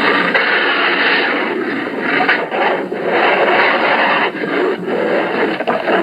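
Grizzly bear sound effect: a run of long, harsh growling roars broken by a few short pauses.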